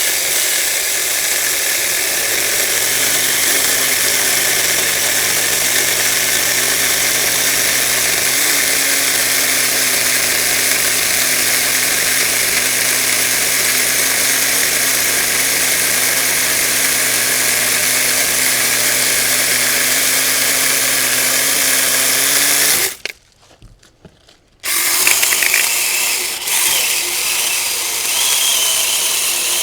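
Saker 4-inch battery-powered mini electric chainsaw running steadily while cutting through a thick piece of wood, the motor holding speed without bogging down. It stops suddenly about 23 seconds in and starts again under two seconds later, cutting on.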